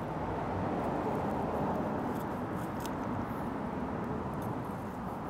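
Chef's knife slicing through a grilled chicken breast on a wooden cutting board, with a few light taps of the blade on the board, over a steady background hiss.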